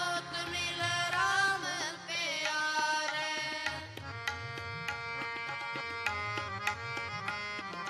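Harmonium and tabla playing a Sikh shabad kirtan. A voice sings a wavering melodic line for the first two seconds or so, then held harmonium chords carry on under a steady pattern of tabla strokes.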